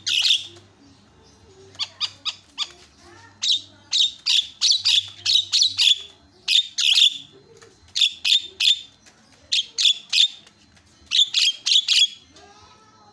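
Javan myna (jalak kebo) singing: loud, short, sharp notes repeated in quick runs of about three or four a second, with brief pauses between the runs.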